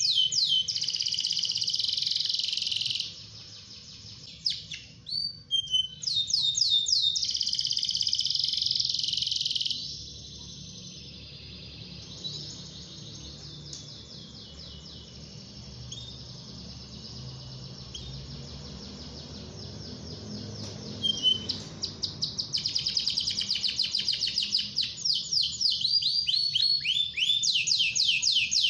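Canary singing: loud runs of fast, rapidly repeated trills and rolls, with a softer twittering stretch in the middle.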